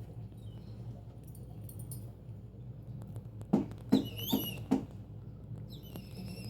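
A small dog whining in thin, high squeals that wobble in pitch, about 4 seconds in and again near the end, with four quick sharp knocks just before the first squeals.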